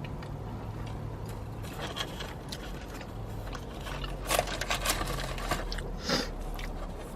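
Close-miked eating: chewing and mouth noises with small clicks, and a few louder crinkles or crunches about four to six seconds in, over a low steady hum.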